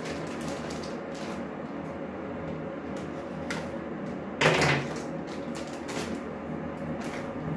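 Kitchen handling noises: a few light clicks and one loud knock about halfway through, over a steady low hum.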